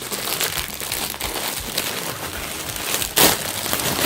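Packaging crinkling and rustling as it is handled and worked open, with a short, louder burst about three seconds in.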